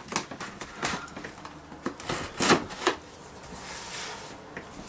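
Scissors scraping and snipping through the packing tape on a cardboard box. There is a run of short scratchy clicks and scrapes, then a softer stretch of rubbing near the end.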